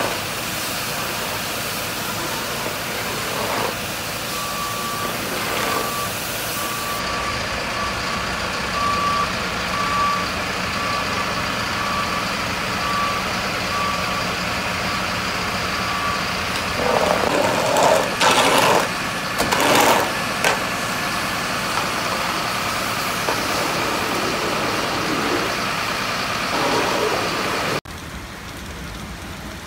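A fire engine running, its reversing alarm beeping at about one and a half beeps a second for some twelve seconds, with a few louder noises after the beeping stops. Near the end it cuts to the steady sound of rain.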